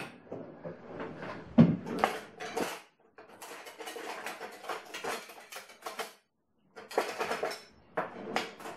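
Kitchen utensils and pots clattering and knocking together as someone rummages through a kitchen cupboard. There is a sharp knock at the start, irregular rattling, a brief pause about six seconds in, then more clattering.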